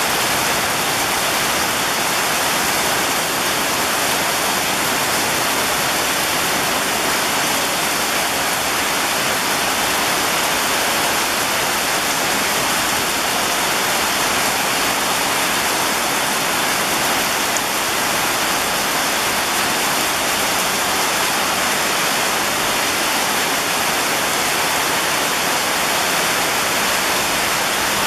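Heavy rain pouring down steadily: a dense, even hiss with no let-up.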